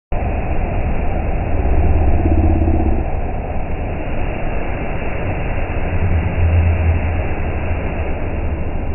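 CNC machine's axis and tool-changer motors running through a tool change: a steady low mechanical hum, with a deeper motor drone swelling twice, around a second and a half in and again around six seconds in.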